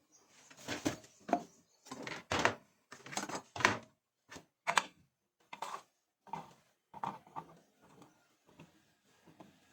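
Irregular knocks and clatters of kitchen items being handled and set down, about a dozen separate hits.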